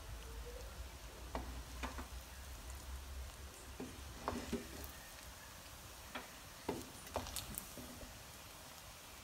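Wooden spatula mixing biryani rice in a pan, knocking and scraping against the pan several times, over a faint sizzle.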